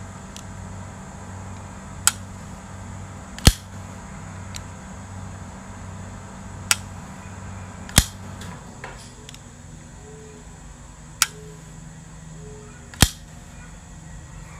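Zero Tolerance 0562CF flipper folding knife being flipped open and snapped shut, three times over: six sharp metallic clicks in pairs, each a lighter click followed a second or so later by a louder snap.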